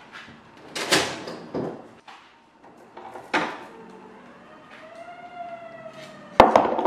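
Food containers clattering and knocking as they are handled at an open refrigerator, a few separate knocks in the first three and a half seconds. From about four and a half seconds in an emergency vehicle's siren sounds from the street, a steady wail that rises a little then slowly falls, and a sharp knock near the end is the loudest sound.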